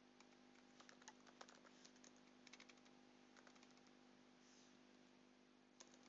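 Faint typing on a keyboard: short runs of soft keystroke clicks with pauses between them, entering Japanese text. A faint steady hum lies underneath.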